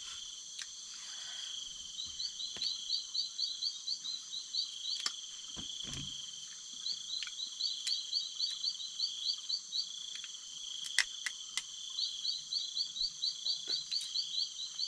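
Night-time chorus of frogs and insects: a steady shrill hum, broken every few seconds by runs of quick chirps, about five a second for two to three seconds at a time. A few sharp clicks and knocks come through close by.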